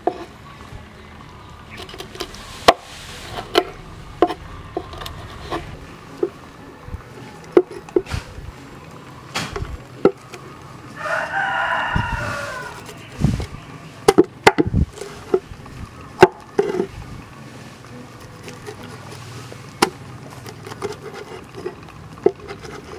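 Meat cleaver chopping through a whole fish onto a wooden board: sharp knocks at an uneven pace. A rooster crows once, about eleven seconds in.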